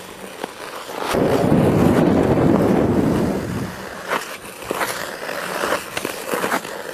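Ice skates on thick, smooth lake ice: a loud scraping rush that starts about a second in and lasts a couple of seconds, followed by a run of short sharp clicks and ticks.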